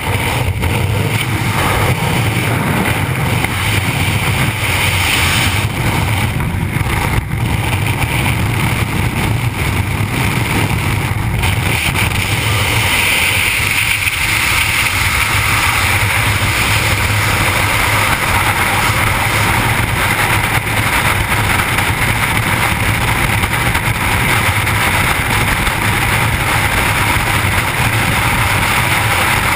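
Steady loud wind noise rushing over a skydiver's camera microphone in freefall, after exiting the aircraft. The character of the rush shifts about twelve seconds in.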